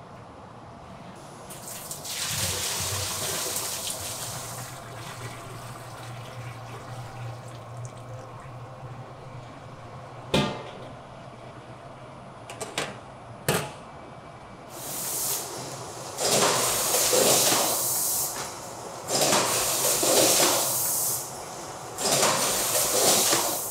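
Liquid poured from a pot into a stainless steel tank, then a low steady machine hum broken by a few sharp metal clicks. After that, raw rice grains are poured from a steel bowl into a stainless container in several loud hissing pours.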